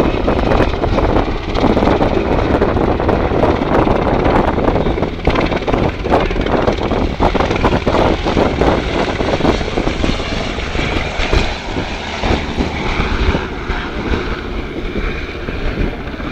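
Sikorsky UH-60 Black Hawk helicopter in display flight overhead: the rapid chop of its main rotor blades over the noise of its twin turboshaft engines, a little quieter in the last few seconds.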